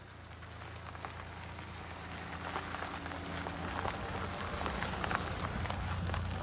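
Toyota Highlander SUV rolling slowly over a gravel road and passing close by: tyres crunching and popping on the loose stones over a low engine hum, growing steadily louder as it nears.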